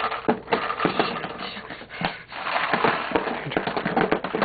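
Paintballs clattering as they pour by gravity out of a ViewLoader paintball hopper held upside down and shaken over a cardboard box: a dense, rapid rattle of clicks with a brief lull about two seconds in.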